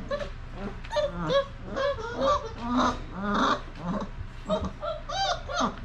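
Basset hound puppies, about a month old, whining and yelping: many short squeals that rise and fall in pitch, coming in quick succession with a few overlapping.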